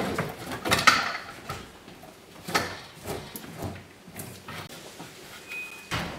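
Irregular knocks, scrapes and creaks of a fuel tank being pushed up into place under the truck on a jack, with a brief squeak near the end.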